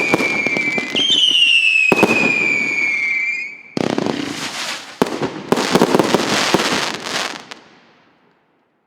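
A 100-shot, 1.2-inch (35 mm) fireworks battery, the RS8710, firing its last shots. A shrill whistle falls slowly in pitch and restarts once, over sharp bangs, for the first three and a half seconds. Then comes dense crackling with many pops, which dies away about eight seconds in as the battery burns out.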